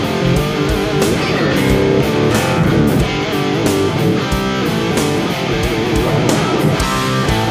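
Live instrumental rock band playing: a lead electric guitar line with pitch bends over a steady drum beat with cymbals and bass.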